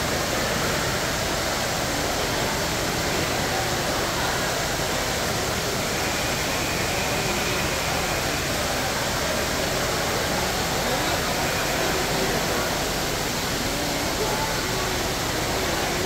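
Steady rush of splashing water from a decorative fountain, with an indistinct murmur of crowd voices underneath.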